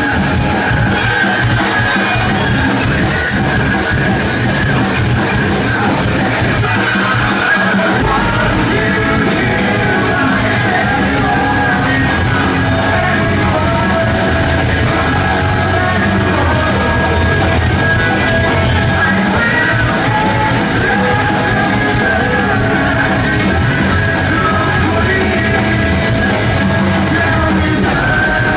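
Live rock band playing loud in a large tent, with a singer singing and shouting into a microphone over electric guitars and drums. The bass and drums get heavier about eight seconds in.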